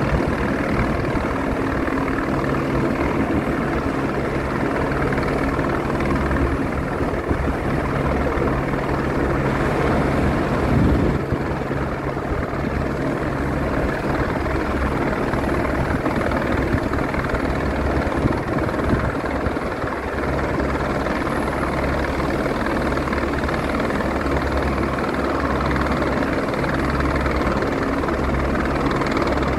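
Three helicopters flying overhead together, their rotors and engines making a steady, continuous drone.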